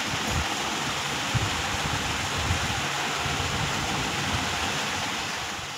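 Steady background hiss with low, uneven rumbles underneath. It fades a little near the end, then cuts off.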